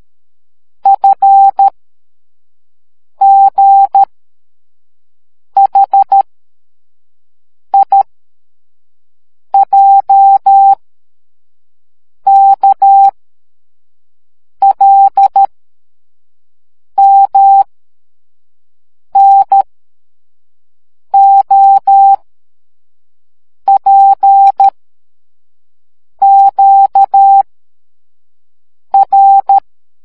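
Morse code sent as a steady electronic beep tone, keyed on and off in short dits and longer dahs. The beeps come in thirteen separate groups about two and a half seconds apart, one letter per group, with silence in between.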